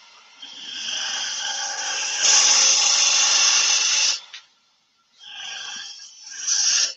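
Bowl gouge cutting the outside of a spinning apple-wood bowl on a wood lathe: one continuous cut of about four seconds that grows louder halfway through, a pause of about a second, then a shorter second cut.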